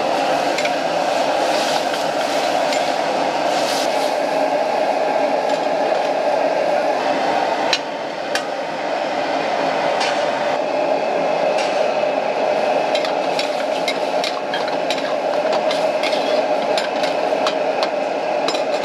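Gas wok burner running with a steady rushing noise while a metal ladle stirs and scrapes in an iron wok, clinking against it: a few taps at first, then many quick taps in the second half, with the sauce simmering.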